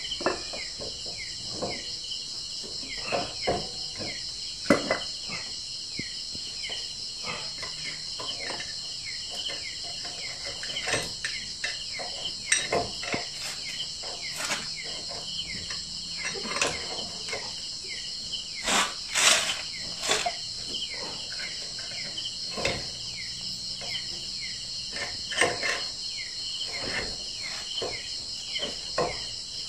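A steady, high-pitched chorus of night insects with many short falling chirps, over scattered metal clicks and knocks from hands and tools working on a motorcycle's rear sprocket and chain; the loudest clatter comes a little past the middle.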